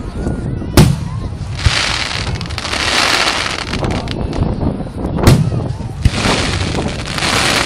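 Aerial firework shells bursting: two loud booms, about a second in and again past five seconds, each followed a moment later by a smaller report, with a steady noisy haze in between.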